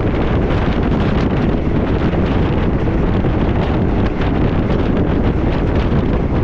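Wind buffeting the microphone held out of a moving train's window, steady and loud, over the rumble of the train running on the track.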